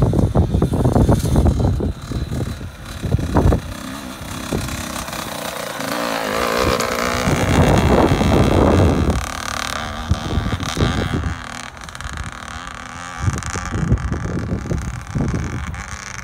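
Small dirt bike's engine running and revving as it is ridden, swelling to its loudest about halfway through and then easing off.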